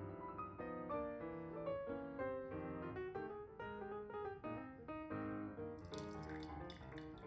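Background piano music, one note after another. About six seconds in, a brief trickle of liquid pouring into a glass jar joins it.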